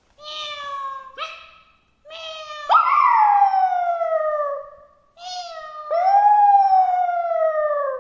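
Short cat meows, then a Yorkshire terrier howling in answer: two long, loud howls that start suddenly and slide down in pitch, the first about three seconds in and the second from about six seconds on, with another meow just before each.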